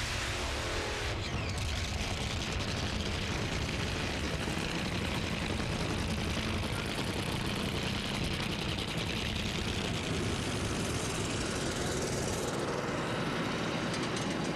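Two Top Fuel dragsters' supercharged nitromethane-burning V8 engines running at close range, a loud, dense, steady crackling noise with no pauses.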